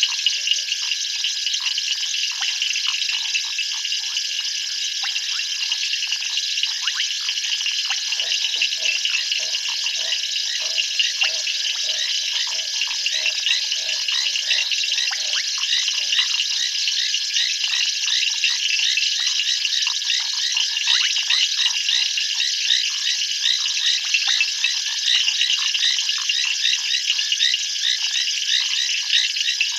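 Night chorus of frogs and insects: a dense, steady mass of rapid high chirping and trilling over a constant high tone. From about 8 to 16 seconds in, a lower, rapidly pulsed croaking joins it.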